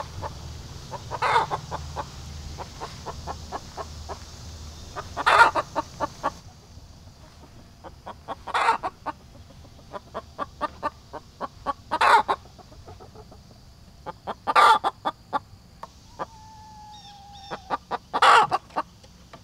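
A hen squawking loudly about every three seconds, six times, with runs of quick clucks between the squawks. It is an agitated hen's commotion, which the keeper suspects is over other hens occupying her nesting box.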